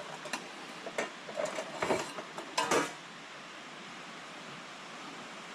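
Camp dishes and utensils clinking and clattering for about three seconds, several sharp knocks among them, over the steady rush of a small creek that carries on alone afterwards.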